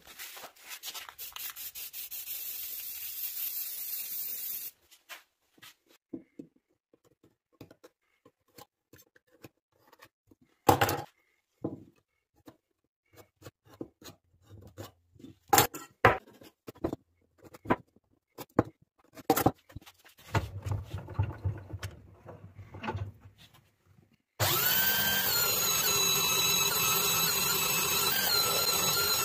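A steady hiss for the first few seconds, then scattered light knocks and taps of wood and tools being handled. Near the end a belt sander, clamped upside down in a vise, starts abruptly with a brief rising whine and runs steadily as a wood block is sanded on its belt.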